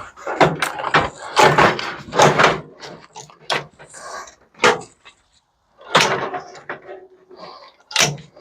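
Sheet-metal parts of a microwave being pulled and knocked about as it is stripped for scrap: a run of bangs and clanks, thickest in the first few seconds, a short lull, then more knocks about six and eight seconds in.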